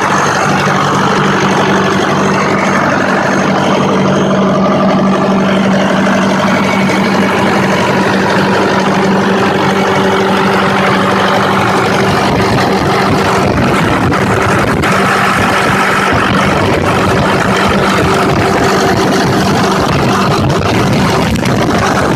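Turbocharged diesel engine of a large wheeled machine running steadily, heard close up in the engine bay with a constant low hum.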